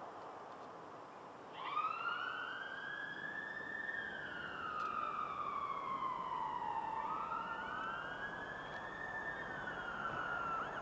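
Police car siren wailing in two slow rises and falls of pitch, starting about a second and a half in and cutting off near the end.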